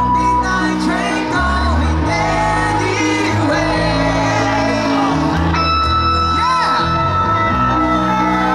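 Live band playing loud amplified music, with a singer over a steady bass line and long held notes.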